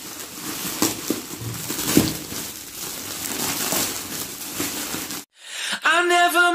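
Shiny plastic gift wrap crinkling and tearing as hands pull a present open. It cuts off abruptly about five seconds in, and a short musical intro tone starts near the end.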